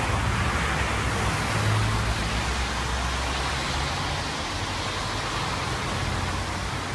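Road traffic on a wet road: a steady hiss of tyres on wet tarmac with the low engine rumble of passing cars, the rumble easing after about four seconds.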